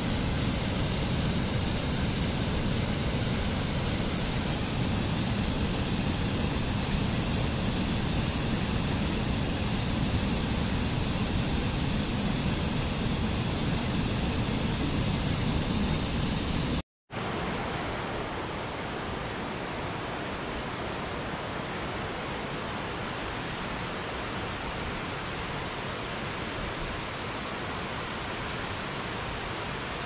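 Steady rush of a waterfall. About 17 seconds in it breaks off for a moment, and a quieter, duller rush of falling water takes over.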